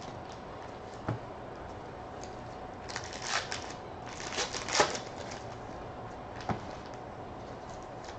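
A Topps Allen & Ginter baseball card pack wrapper crinkling as it is torn open, while the cards are handled. There are a few short rustles and snaps, the busiest stretch about three to five seconds in.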